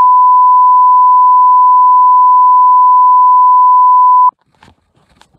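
A loud electronic beep tone at one steady pitch, held for about four seconds, then cut off sharply. Faint knocks follow.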